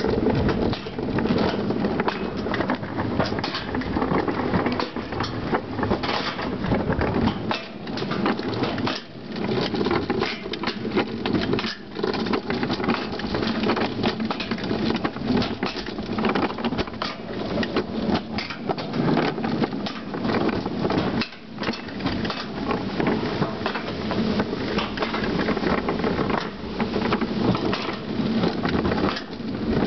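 Summer bobsled rumbling and rattling along its metal trough track, with frequent irregular clacks as it crosses the joints between track sections and a few brief lulls.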